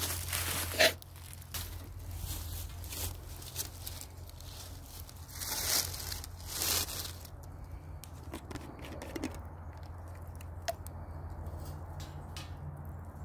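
Crunching and rustling of dry leaves and twigs as the small wood-burning camp stove is tended, with scattered snaps from the burning sticks. The loudest crunches come about a second in and again around the middle.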